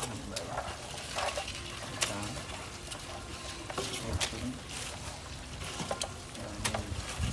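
Hand rummaging through leaves in a metal basin of seed crabs: leaves rustling, with scattered sharp clicks and scrapes.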